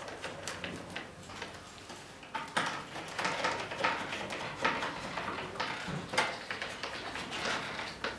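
Hand screwdriver driving small metric screws into the plastic tail fitting of a foam RC plane, with irregular light clicks and ticks, more of them in the second half.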